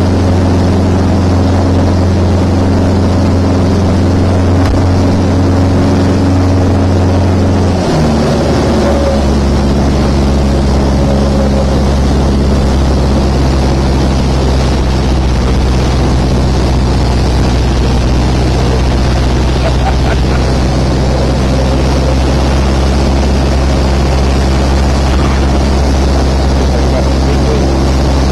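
Light aircraft's piston engine and propeller heard from inside the cockpit, running steadily; about eight seconds in the engine note drops to a lower steady pitch as the power is reduced.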